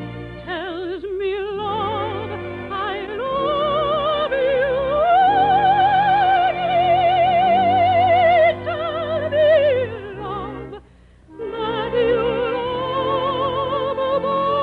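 Operetta music: orchestra with a lead melody sung or played with heavy vibrato, climbing to a long held high note in the middle before gliding down. It breaks off briefly about eleven seconds in, then the melody resumes.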